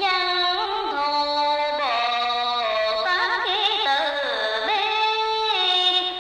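Singing: a single voice holds long notes with a wavering vibrato and slides from one pitch to the next, a slow melody.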